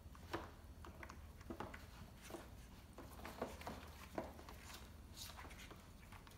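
Faint, irregular taps and clicks of a Shih Tzu puppy's claws and a ball knocking on a tile floor and the plastic rim of a potty tray as the puppy scrambles and plays, over a low steady room hum.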